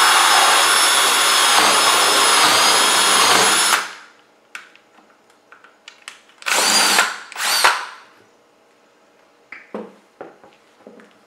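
Bosch 18 V cordless drill boring through an old hard drive's metal casing and platter: a loud, steady high whine that cuts off a little under four seconds in. Then come two short revs of the drill, each rising and falling in pitch, and a few light knocks near the end.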